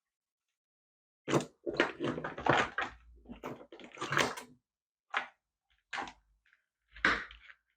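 Handling noises on a workbench: a rapid run of clicks, rustles and knocks lasting about three seconds, then three single knocks, as wires and test gear are picked up and moved about.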